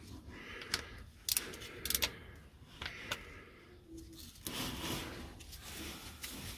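A few light metallic clicks and scrapes from a tool working at the car's tight oil sump plug, which does not come loose.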